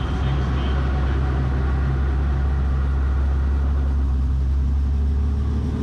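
Robinson R44 helicopter's piston engine running at idle just after start-up, with the main rotor turning: a steady, even low drone.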